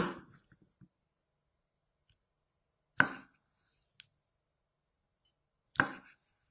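Kitchen knife chopping down onto a cutting board three times, about three seconds apart, each a single sharp chop that dies away quickly, with a faint click between the second and third.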